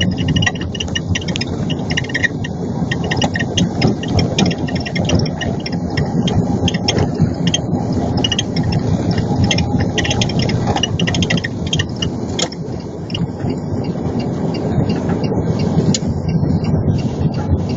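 Creaking and squeaking from the front of a Lada Granta: quick, irregular chirps and ticks over a steady rumble from the car. It is an unexplained front-end creak; the owner's tags point at the front suspension, the strut or its upper support bearing.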